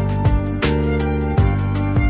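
Background music with a steady beat: sustained tones over regular drum hits.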